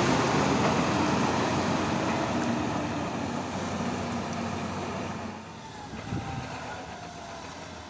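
A heavy diesel vehicle running with a steady low hum under a rushing noise, both fading gradually and dropping off about five seconds in.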